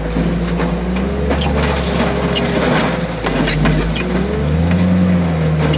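Engine and hydraulics of a grapple-arm machine working under load, the engine pitch rising and falling. Scattered metal clunks and creaks come from a scrapped car body being set on top of another in the crusher bed.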